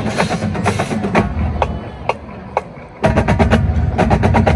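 Marching band playing, its drumline hitting sharp, crisp strokes over the low brass. The band drops back to a few isolated hits for about a second, then comes back in loud with the full band about three seconds in.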